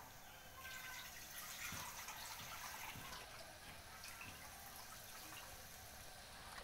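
Rice vermicelli and shredded carrot cooking in a wok, faintly sizzling with scattered small crackles and pops.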